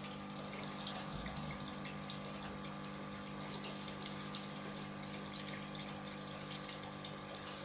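A small motor's steady hum with a faint, even trickling noise, and a couple of light clicks about four seconds in.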